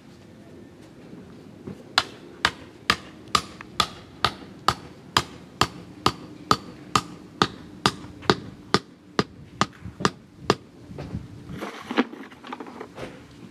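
A hand hammer driving a landscape-edging stake into the soil: about twenty sharp, even blows at roughly two a second, starting about two seconds in. Near the end the hammering stops and there is scraping and rustling in the dirt with one last blow.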